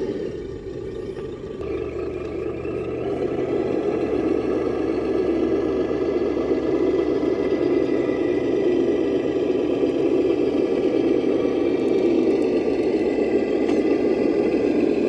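Electric RC truck's motor and geared drivetrain whirring steadily as it drives, building up over the first few seconds.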